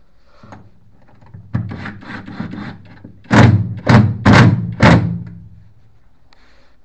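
A clatter of knocks, then four loud thuds about half a second apart.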